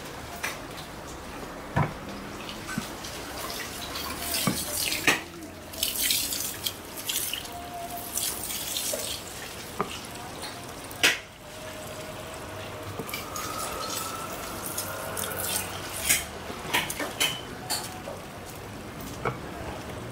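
Liquid pouring in a thin stream from a hose into a large aluminium pot of glutinous rice and coconut milk, with sloshing as a long paddle stirs the mix. Sharp clicks and knocks come every few seconds.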